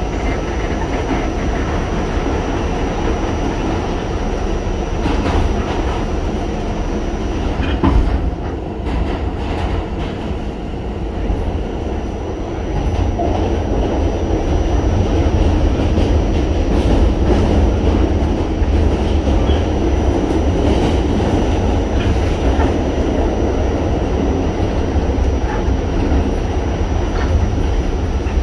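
New York City subway car running, heard from inside: a steady heavy rumble of wheels on the track with scattered clicks and clatter and a thin high whine. It grows louder about halfway through.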